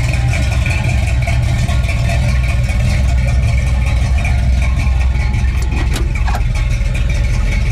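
1969 Dodge Super Bee's 440 cubic-inch V8 idling steadily, a low even engine sound with no revving.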